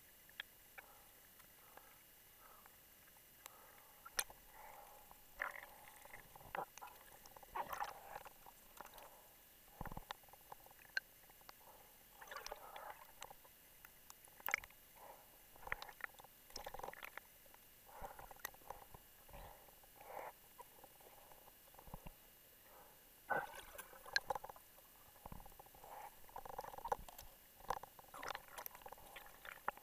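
Muffled underwater noises heard through a camera housing: scattered clicks and knocks with short gurgling, crackling bursts every few seconds, from a diver and his rebreather gear moving through the water.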